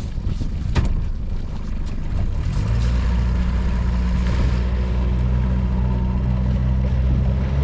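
Small fishing boat's engine picking up about two and a half seconds in, then running at a steady pitch under way. Before that there is wind and water noise and a sharp knock about a second in.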